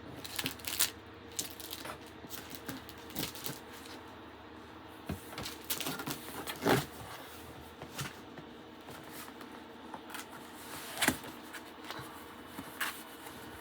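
Cardboard shipping box being opened and unpacked by hand: irregular rustling, scraping and tapping, with two louder knocks about halfway through and near the end.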